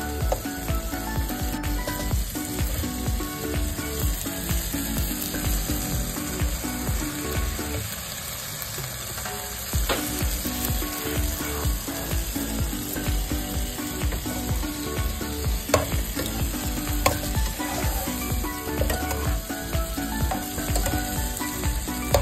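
Squid and broccoli sizzling as they stir-fry in a pot, with a metal spatula scraping through the food and now and then clicking against the pan. The sizzle drops briefly about eight seconds in.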